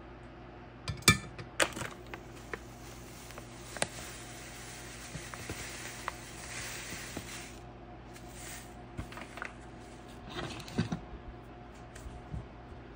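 Stainless-steel mesh pour-over filter clinking as it is set into a glass carafe, then ground coffee poured from a foil bag into the filter with a steady, sandy hiss. Near the end there are more short rustles and light taps.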